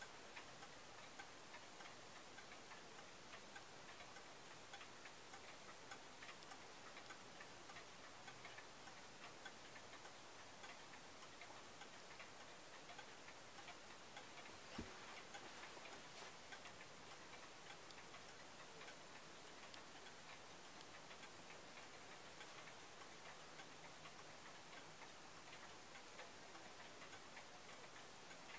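German pendulum wall clock ticking steadily and faintly, with one sharper click about halfway through.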